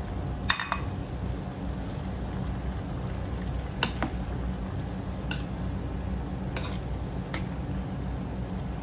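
Pork and vegetables simmering steadily in a wok while a metal spoon stirs them, clinking against the pan several times.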